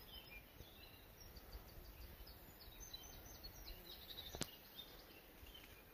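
Near silence: faint outdoor ambience with faint, high bird chirps, and one sharp click about four and a half seconds in.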